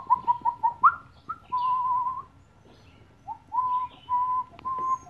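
Airedale Terrier puppy whining: a quick run of short high whimpers, then longer wavering whines at the same pitch. The puppy is nervous at being set up on a table.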